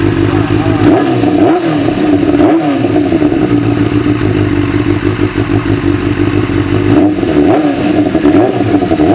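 Benelli TNT600's inline-four engine running through an Akrapovič slip-on exhaust, idling steadily with short throttle blips about a second and a half and two and a half seconds in, then several more near the end.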